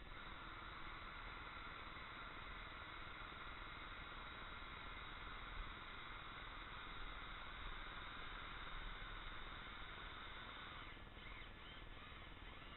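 Cordless drill running steadily as its bit works into a wooden mushroom cap, a faint even whine that breaks up about eleven seconds in.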